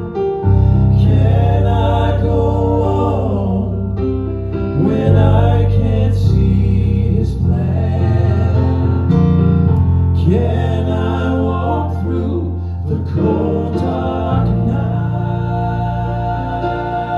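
Southern gospel vocal group music: sung vocal lines over a steady instrumental accompaniment with a sustained bass.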